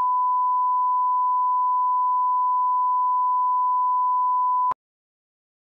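Steady 1 kHz test-tone beep accompanying colour bars, one unbroken pure tone that cuts off abruptly near the end.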